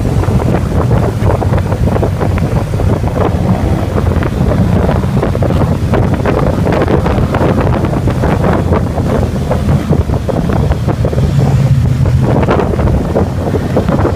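Heavy wind noise on the microphone of a camera riding on a moving motorcycle, over the steady low sound of motorcycle engines running.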